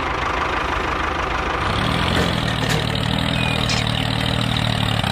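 Engine running steadily, a lower even hum settling in about two seconds in.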